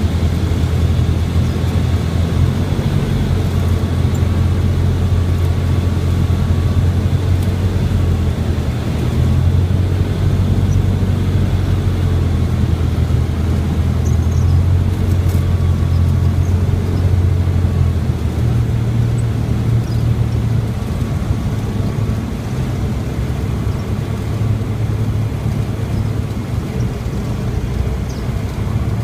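Cessna 172R's four-cylinder Lycoming engine and propeller droning steadily, heard inside the cabin on final approach and landing roll. The low drone shifts slightly in pitch about two-thirds of the way through.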